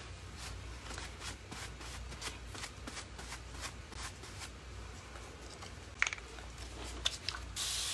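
Paper towel rustling and crinkling as paintbrushes are wiped clean in it: a run of small scratchy rustles. Near the end, a short hiss from a fine-mist spray bottle.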